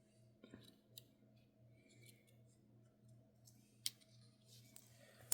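Near silence over a low steady hum, broken by a few faint metallic clicks of pocket-knife tools being handled, the sharpest just before four seconds in.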